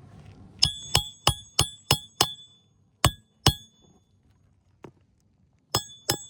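Hand hammer driving roofing nails through asphalt shingles: a quick run of six ringing metal strikes, about three a second, then two more, then two more near the end.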